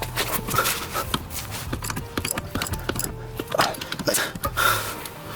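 Irregular metallic clicks and clanks of hand tools working on a car's rear suspension links and bolts, some with a short ring, over a low steady hum.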